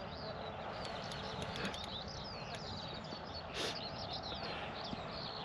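Small songbirds chirping and singing over a steady outdoor hiss, with a short rush of noise about three and a half seconds in.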